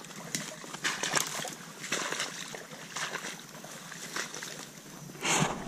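Footsteps wading and sloshing through shallow swamp water and pushing through brush, in uneven strides, with one louder splash or swish near the end.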